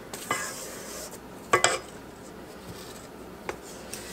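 Silicone spatula scraping down a stainless steel stand-mixer bowl, with a few sharp clinks against the metal, the loudest a quick pair about a second and a half in.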